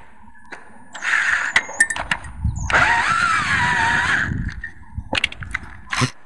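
Battery-powered drill running in two bursts against a boat's transom mount: a short one about a second in, then a longer one of about two seconds whose motor pitch sags under load. Clicks and clatter of handling around them.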